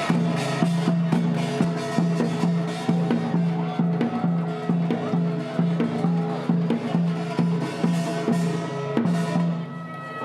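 Music with a steady, even drumbeat of about two to three strokes a second over held low notes, with some gliding higher notes above.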